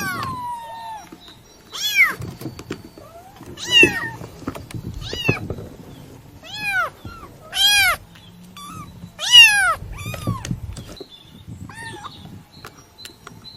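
A kitten meowing over and over in short, high-pitched calls that rise and then fall, one every second or two.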